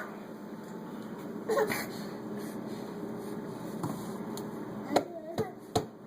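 A few sharp clicks and knocks over a steady low hum, with two brief small vocal sounds from a young child, the second one about five seconds in.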